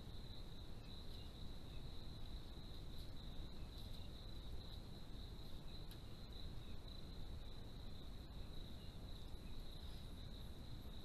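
Crickets trilling in a steady, continuous high-pitched chorus over a low rumble of background noise.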